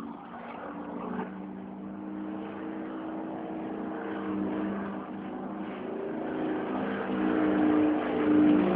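Airplane engine droning overhead, a steady hum that grows louder over the last few seconds as the plane comes closer.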